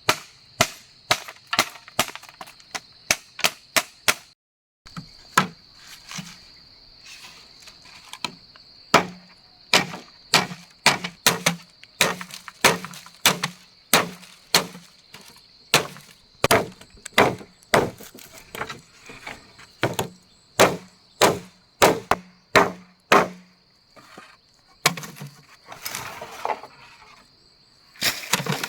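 A tool chopping wood with sharp, rapid strikes, about two to three a second. A brief gap about four seconds in interrupts the run. A steady high-pitched buzz runs under the strikes.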